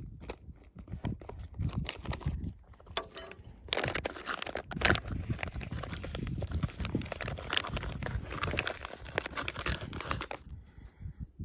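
Foil-lined freeze-dried meal pouch crinkling and rustling in the hands, a dense irregular crackle that stops abruptly near the end.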